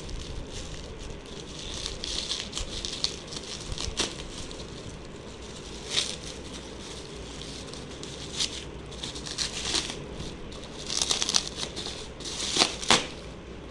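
Packaging crinkling and rustling as it is handled and opened, with scattered sharp clicks and taps, busiest near the end.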